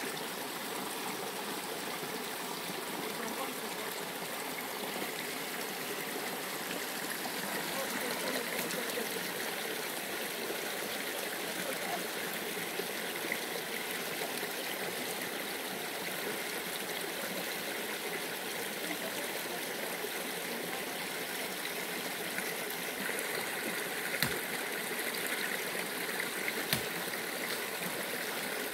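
Steady rushing of a small stream flowing over rocks, with two short sharp snaps near the end.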